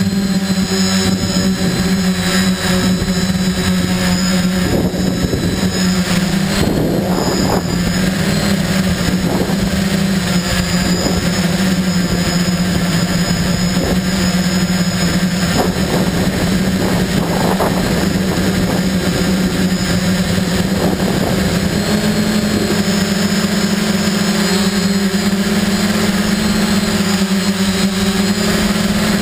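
Quadcopter motors and propellers buzzing steadily, heard up close from the camera riding on the drone. The hum dips a little in pitch through the middle of the flight and rises again near the end, with rougher, less steady sound in between.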